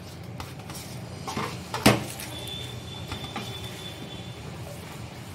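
A hand crumbling and pressing drained chhena against a stainless steel plate, with light scraping and clicking of fingers on the metal and one sharper knock a little under two seconds in.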